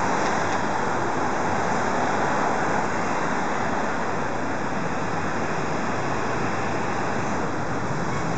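Steady roar of street traffic noise, with no distinct events.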